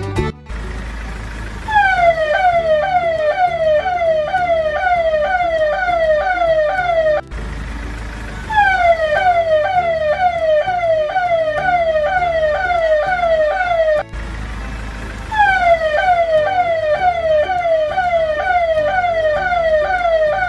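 Electronic siren: a quick falling wail repeated about twice a second, over a low hum. It plays in three loops, each cut off abruptly and restarting with a second or so of hum alone before the wails come back.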